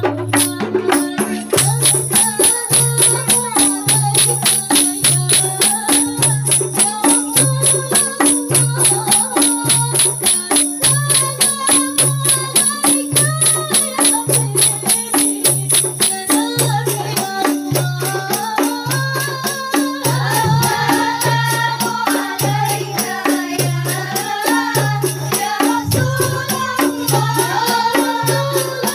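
Rebana frame-drum ensemble playing a steady, even beat of deep strokes and sharp slaps, with women's voices singing a melody through microphones; the singing grows stronger about halfway through.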